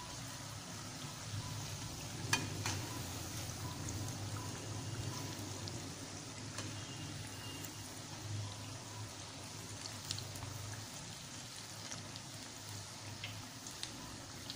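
Onion bhajis (gram-flour batter fritters) deep-frying in hot oil in a steel kadhai: a steady sizzle, with a few sharp clicks of a slotted steel spoon against the pan, the strongest about two seconds in.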